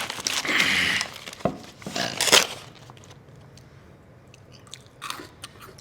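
A person chewing and biting crunchy food close to the microphone: a few loud crunching bursts in the first two and a half seconds, then softer, scattered chewing clicks.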